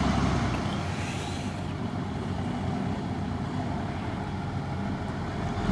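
Military 6x6 cargo truck's engine running steadily under load as the truck pushes through deep mud and water.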